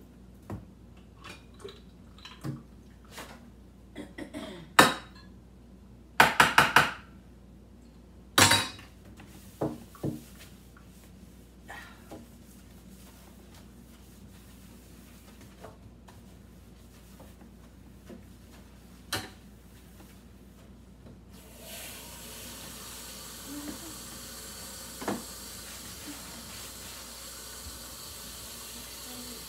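Dishes and utensils clinking and knocking in a stainless steel sink as they are scrubbed with the tap shut off, with a quick run of four loud knocks about six seconds in. About two-thirds of the way through, the kitchen faucet is turned on and water runs steadily into the sink for rinsing.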